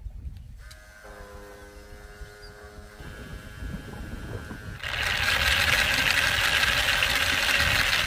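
A small electric pump runs with a steady whine as it pushes orange coolant through clear tubing coils. About five seconds in, a much louder, even hiss sets in and carries on.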